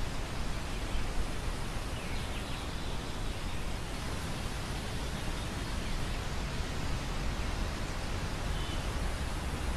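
Wind over a grain field: a steady, even rustling hiss with a low rumble of wind on the microphone. Two faint, brief high chirps come through, about two seconds in and near the end.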